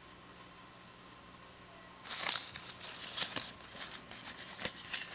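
Near-silent room for about two seconds, then crinkling and rustling with small sharp clicks as toy packaging and paper are handled.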